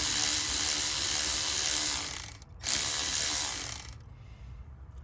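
Cordless electric ratchet running in two bursts, tightening the hose clamp on a cold air intake coupler. It runs for about two and a half seconds, stops briefly, then runs again for about a second.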